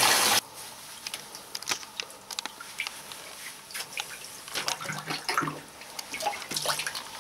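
A loud rush of water in a bathtub stops abruptly about half a second in. Then scattered drips and small splashes follow as water runs off soaked clothing into the shallow water left in the tub.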